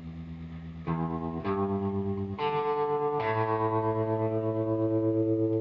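Intro music: sustained chords, with a new chord struck about four times, each held with a fast, wavering pulse.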